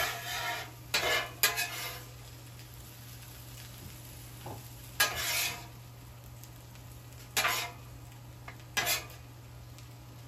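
Metal spatula scraping across the steel top of a Blackstone griddle, shoving chopped chicken and bacon onto a pile of tots, in about six short scrapes.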